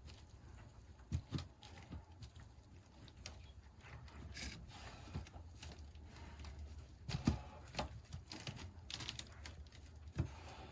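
A cat stepping about on a homemade cat wheel: irregular soft thuds and knocks of paws on the wheel, with brief rustles now and then.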